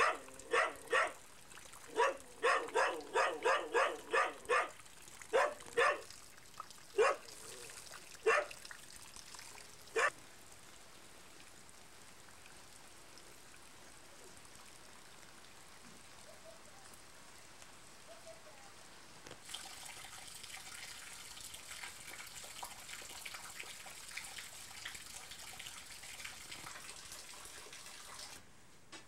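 A dog barking in quick runs of several barks a second, then with single barks spaced further apart, the last about ten seconds in.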